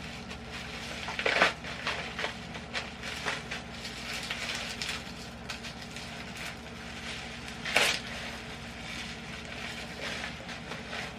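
Product packaging being handled: scattered crinkling and crackling, with a louder crackle about a second in and a sharper one about eight seconds in.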